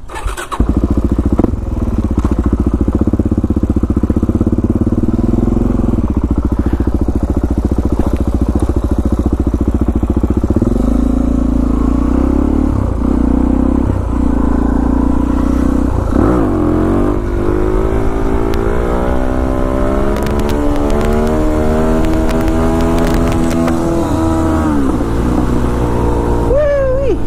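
Suzuki DR-Z400SM's single-cylinder four-stroke engine idling steadily, then pulling away and accelerating up through the gears. From about the middle on, the engine note climbs and drops back again and again with each shift.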